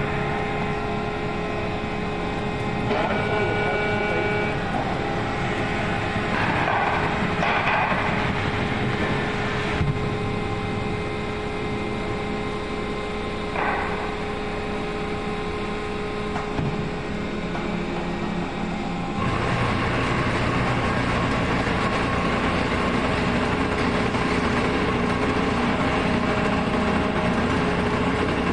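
Hydraulic power unit of a compressed sawdust core plug press running with a steady hum and whine, with a few short knocks and hisses as the press moves. About 19 seconds in, the sound steps up louder and deeper while the press is under pressure on the mould.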